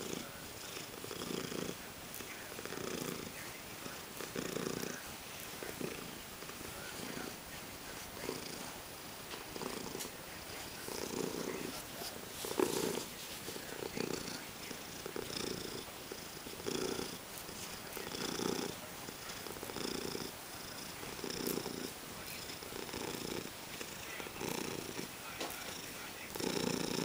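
Orange tabby cat purring while being stroked on the head and chin, a sign of contentment. The low purr swells and fades about every second and a half with its breathing.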